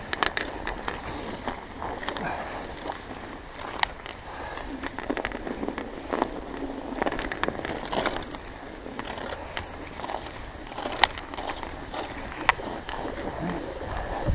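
Bicycle riding through fresh snow: tyres hissing and crunching on the snowy road, with occasional sharp clicks and rattles from the bike.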